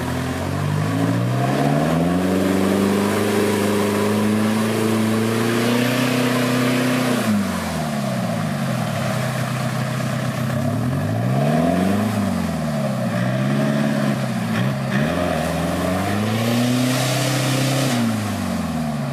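Off-road vehicle's engine revving: it climbs in pitch over the first couple of seconds and holds high, drops at about seven seconds, then rises and falls several times in quick succession before climbing once more near the end.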